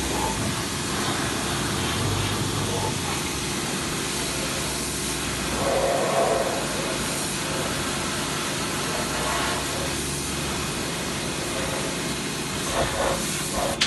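Pressure washer running steadily, its water jet hissing as it sprays the underside of a car, over the steady hum of the washer's motor.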